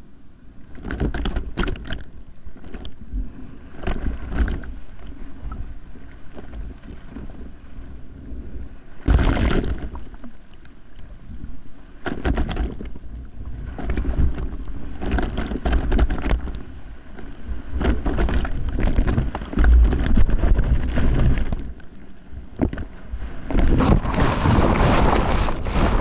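Ocean water rushing and splashing around an action camera's microphone at water level as a bodyboarder rides a breaking wave, with wind buffeting the mic. It comes in irregular surges, with a louder, fuller wash near the end.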